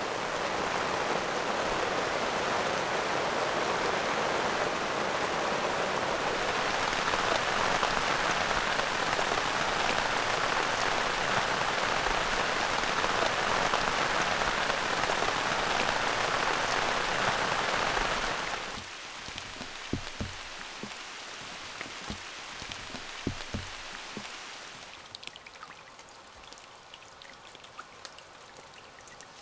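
Rain falling in autumn forest, a dense steady hiss that drops off suddenly about two-thirds of the way through to lighter rain with a few low thuds, then thins near the end to scattered drips.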